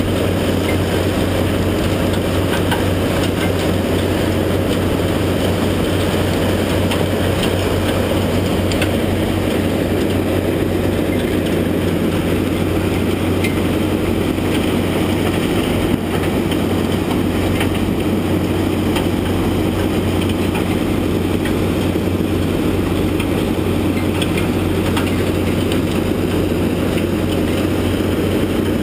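Heavy diesel machinery running steadily: a Komatsu PC400 excavator and an Eagle UM45 impact crusher plant, a constant low engine hum with faint scattered clatter of concrete rubble.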